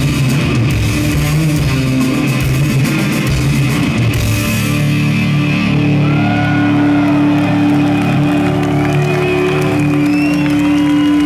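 Live rock band with bass, electric guitars and drums playing loudly. About four seconds in the drumming stops and a low chord is held and rings on, as at a song's ending, with sliding high tones and the crowd's cheering starting over it near the end.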